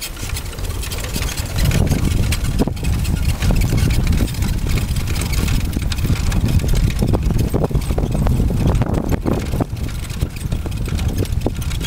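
Dog-drawn Sacco cart rolling fast over a rough grass and dirt track: a steady low rumble that builds up over the first couple of seconds, with scattered rattles and knocks from the metal cart frame.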